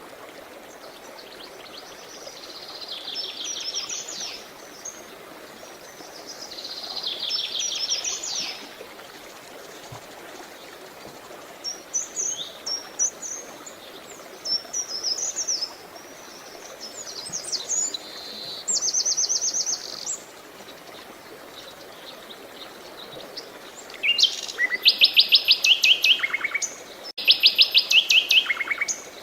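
Songbirds singing in repeated fast trilled phrases and short chirps over a steady hiss of running water. The loudest trills come in two runs near the end.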